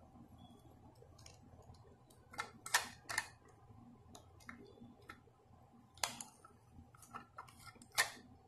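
Sharp plastic-and-metal clicks and rattles from a model front-loader garbage truck's parts being worked by hand, in three short clusters, the loudest about a third of the way in and near the end.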